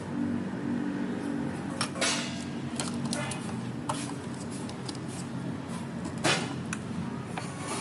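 Kitchen clatter of dishes and utensils: scattered clinks and knocks, the loudest about two seconds in and again near six seconds, over a steady low hum.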